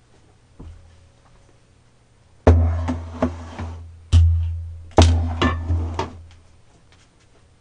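A heavy cooking pot set down and shifted on a table: three deep thumps in the middle, with sharp clinks of the lid and metal ladle.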